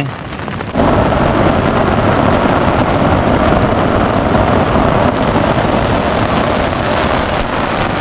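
Heavy rain pelting a tent, heard from inside: a dense, steady, loud pattering that starts suddenly about a second in.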